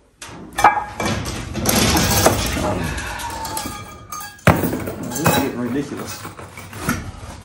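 Steel chain rattling and clinking against metal hooks as it is handled and unhooked, with several sharp metal knocks.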